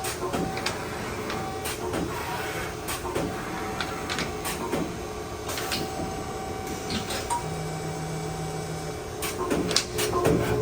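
LVD/Strippit U-1000-XP CNC turret punch press running: sharp punching hits at irregular spacing, roughly one a second, over a steady machine hum, with a low drone for about a second and a half late on.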